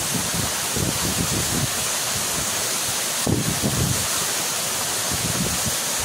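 Waterfall pouring onto rocks: a steady rush of falling water. Uneven low rumbles from wind buffeting the microphone come and go over it, one stronger about three seconds in.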